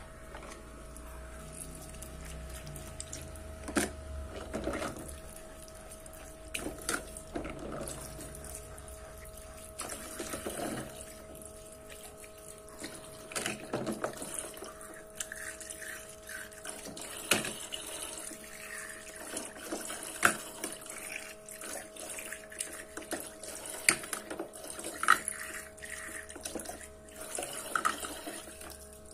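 Toy play-sink running: a small pump hums steadily while water trickles from its little tap. Plastic toy plates and cups clack and knock against each other and the sink now and then.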